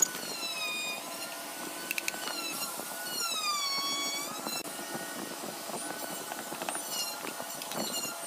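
An electric drill's motor whining, its pitch sagging and picking up again under changing load, with scattered light clicks.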